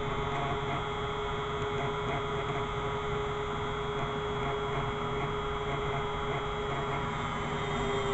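Electric grinder's motor running with a steady hum while a knife blade is being ground.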